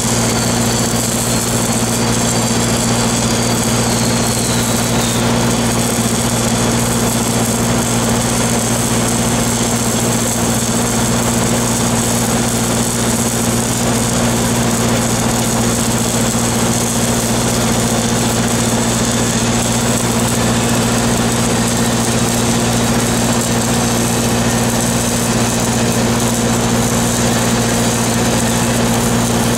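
Shielded metal arc (stick) welding on a large steel pipe joint: a steady crackling, sizzling arc with no breaks, over the even hum of an engine running steadily.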